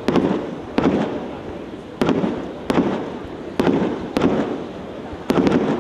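Two 6-inch water ballet firework shells burning on the water, each firing off spurts of sparks: a string of sharp bursts, about seven, at uneven gaps of under a second to about a second, each trailing off into a hiss.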